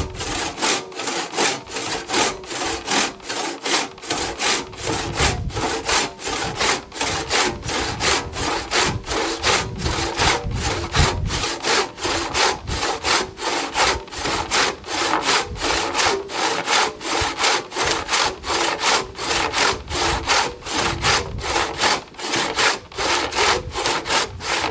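Disston crosscut saw cutting through a log, worked back and forth by hand in a steady rhythm of rasping strokes, about two a second.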